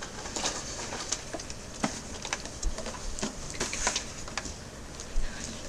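Scattered light clicks and rustles from handling, irregular and a few to the second, over a low hiss.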